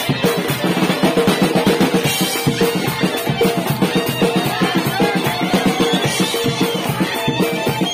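Live folk-band music led by a drum kit: fast, steady snare and cymbal strokes under a wavering melody line.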